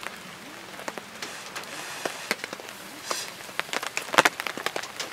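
Charcoal in a small box grill crackling and popping irregularly under shrimp grilling on the wire mesh, with a faint hiss between the pops and a cluster of sharper pops about four seconds in.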